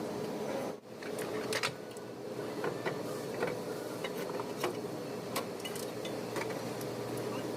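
Scattered sharp metallic clicks and taps, like tools and metal engine parts being handled, over a steady mechanical hum.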